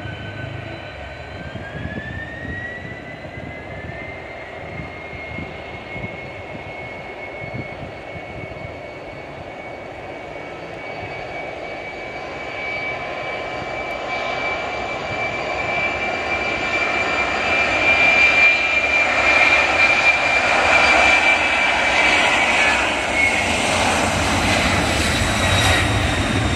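Turbofan engines of a FedEx twin-engine cargo jet: a whine rises in pitch in the first few seconds, then holds steady while the engine noise grows steadily louder, loudest about two-thirds of the way through.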